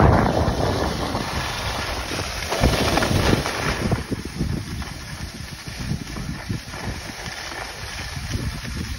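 Wind buffeting a phone's microphone while skiing downhill, mixed with the hiss and scrape of skis on packed snow. It is strongest at the start and eases off after a few seconds.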